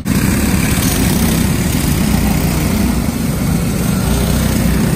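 Several go-kart engines running together in a loud, steady small-engine din.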